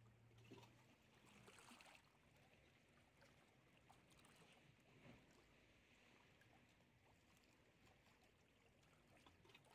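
Near silence: a faint steady hiss with a few tiny clicks.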